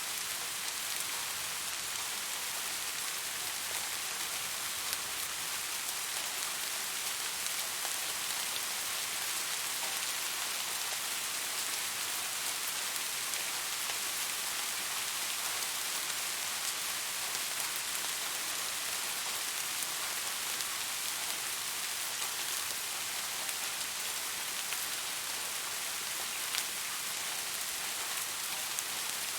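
Steady rainfall with the patter of raindrops on surfaces, an even high hiss with scattered fine drop clicks.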